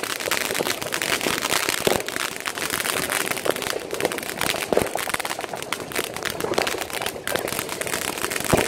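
Ground-level fireworks crackling and popping densely without a break, with a few louder bangs mixed in.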